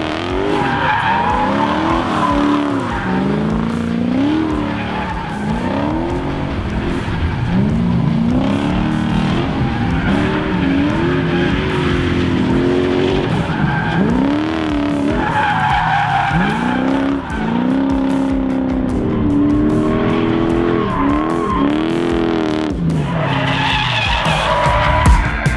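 Mazda B2200 mini truck with a swapped Lexus 1UZ V8, drifting. The engine revs rise and fall again and again through each slide, with tyres squealing in patches.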